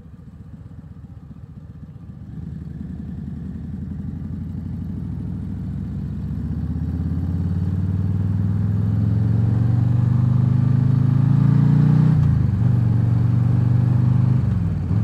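Harley-Davidson V-twin motorcycle engine under hard acceleration: after a quiet first couple of seconds the engine note climbs steadily for about ten seconds, drops at an upshift about twelve seconds in, climbs again and drops at another shift near the end.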